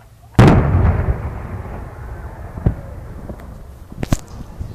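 Aerial fireworks: one shell bursts with a loud boom about half a second in, and its rumble trails off over the next couple of seconds. Two sharp cracks follow, one near the middle and one near the end.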